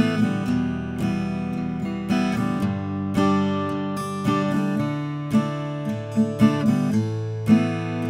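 Eastman E10-00 12-fret 00 acoustic guitar with an Adirondack spruce top and mahogany back and sides, strummed: chords struck with sharp strokes and left ringing between them.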